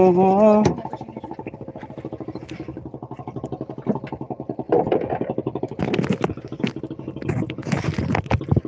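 Fishing boat's engine running under way with a rapid, even pulse, and a few sharp knocks in the second half. A drawn-out voice-like call cuts off under a second in.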